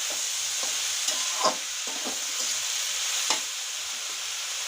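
Chopped vegetables stir-frying over high heat, sizzling steadily in the pan. A spatula scrapes and clinks against the pan as they are stirred, with the sharpest knocks about one and a half and three and a third seconds in.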